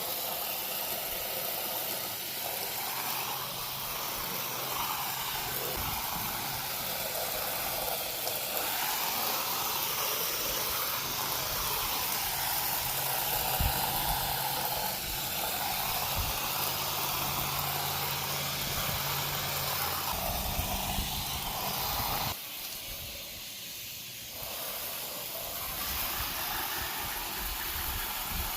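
Pressure washer running, its water jet hissing steadily against house siding over a low steady motor hum. The spray drops off suddenly about three quarters of the way through and comes back quieter a couple of seconds later.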